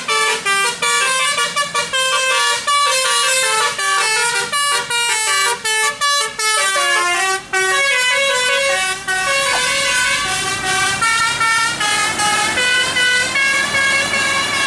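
A bus's Basuri telolet horn playing a melody of quick stepped notes; in the second half the notes are held longer.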